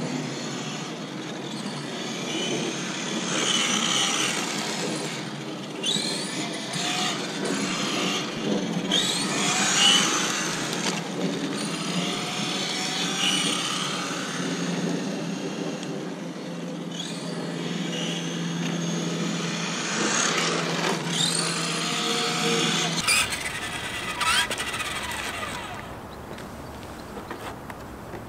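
Tamiya TT-02 radio-controlled car driving on asphalt: its electric motor and gears whine, rising and falling in pitch as it speeds up and slows, over a steady rush of tyre noise. About 23 seconds in the sound cuts to a quieter outdoor background.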